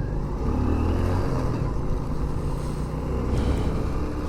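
Motorcycle engine running under way, its pitch rising through roughly the first second as it accelerates and then holding steady, over road and wind noise.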